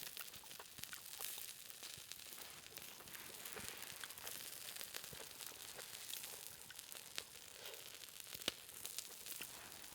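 Food sizzling on a hot stone over a wood fire: a faint, steady hiss with scattered sharp crackles and pops, one louder pop about eight and a half seconds in.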